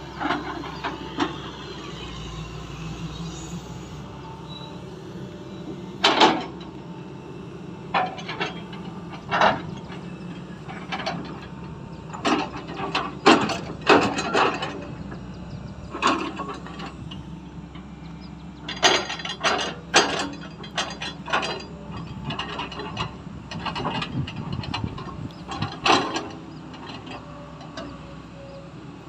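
XCMG excavator's diesel engine running steadily while its grapple loads rubberwood logs onto a steel logging trailer, with repeated sharp knocks and clunks as logs strike the trailer and each other, some coming in quick clusters.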